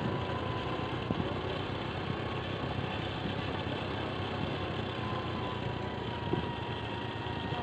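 Small motorcycle engine running steadily while riding along a road, with a constant hum and rushing road and wind noise.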